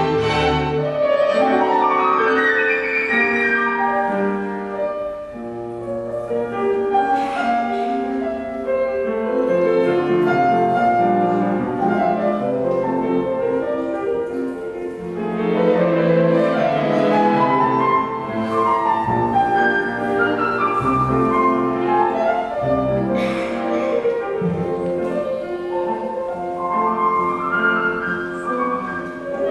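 A chamber ensemble of piano and strings, including violins and a double bass, playing classical music live, with rising runs sweeping up several times.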